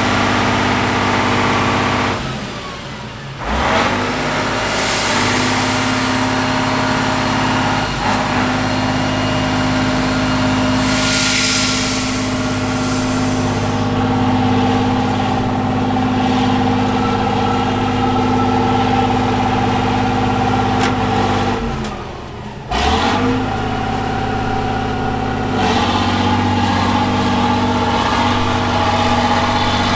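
Heavy diesel engine of an 8x8 trial truck working steadily under load as it wades through deep muddy water. Twice the engine note drops away for about a second and then picks back up.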